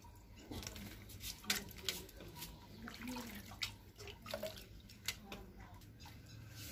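Jamun fruits being washed by hand in a steel bucket of water: irregular sloshing and splashing, with drips as handfuls are lifted out.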